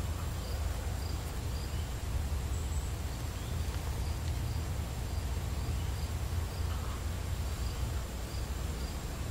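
An insect chirping in an even rhythm, about two short high pulses a second, over a steady low rumble.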